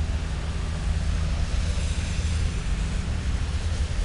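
CSX freight train approaching in reverse, caboose first: a steady low rumble with a hiss above it.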